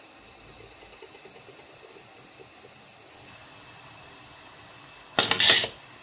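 UniStrip 2015-style benchtop wire stripping machine running one strip cycle on an inserted wire end about five seconds in: a loud, brief mechanical burst of about half a second, over a faint steady hum.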